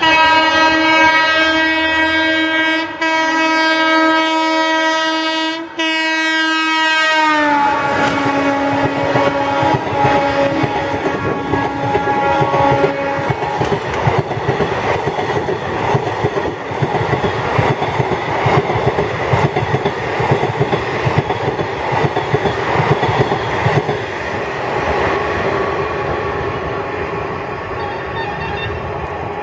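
A WAG-7 electric locomotive's horn sounds continuously as it charges through the station, with two brief breaks. Its pitch drops as the locomotive passes about seven seconds in, and the lower horn carries on until about thirteen seconds. After that the express's coaches roll past at speed, their wheels clattering over the rail joints.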